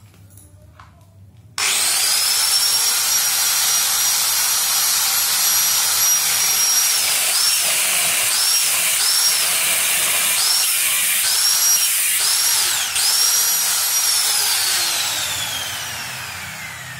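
Angle grinder cutting into a steel door frame, starting abruptly about a second and a half in. Its high motor whine dips in pitch several times as the disc bites into the steel, then it is switched off and spins down with a long falling whine near the end.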